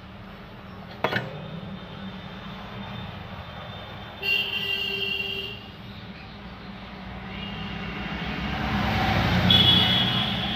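Road traffic: a horn toots briefly about four seconds in, then a vehicle approaches and passes, loudest near the end, with another horn toot at its peak. A sharp click about a second in.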